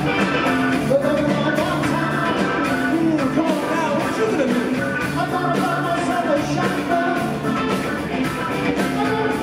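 A rock band playing live: a man singing over electric guitar, keyboards and drums.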